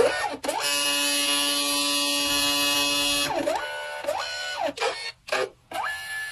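Polaroid Hi-Print pocket photo printer's paper-feed motor whining as it draws the print back in between colour passes: a steady whine for about three seconds, then several quick swoops down and back up in pitch as the motor slows, reverses and speeds up, with short pauses near the end.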